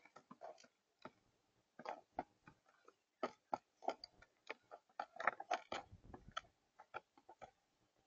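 Mourning doves pecking seed and peanuts on a feeder table: irregular sharp taps and clicks, sometimes several a second.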